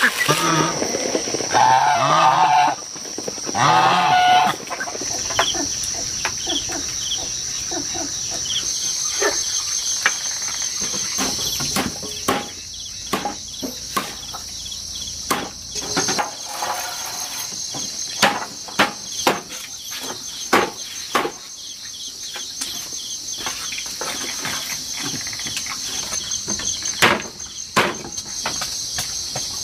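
A steady high-pitched insect drone, with poultry calling over the first few seconds and a scattered run of sharp taps or knocks through the rest.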